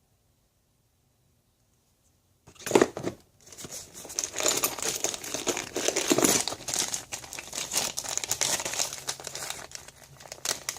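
A small bag in a tool bag being handled and opened. It starts with a bump a couple of seconds in, followed by a dense, continuous rustle as its contents are rummaged through.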